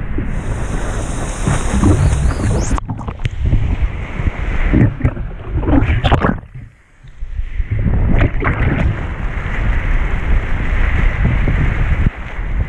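Wind buffeting the microphone over the rush and splash of water as a stand-up paddleboard rides a wave. About six seconds in, the sound drops away and goes muffled for a second or so as the paddle-mounted camera dips into the water, then the wind and water rush return.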